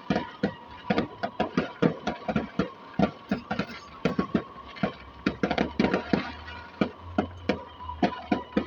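Distant fireworks going off in quick succession: an irregular string of bangs and pops, several a second, with no break.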